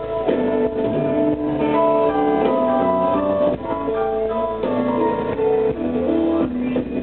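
Blues band playing live on electric guitars, drum kit and keyboard, with sustained keyboard and guitar notes over a steady beat.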